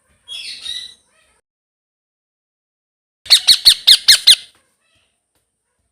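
Young blue Indian ringneck parakeet calling: a short chattering call, then about three seconds later a quick run of seven loud, harsh squawks lasting about a second.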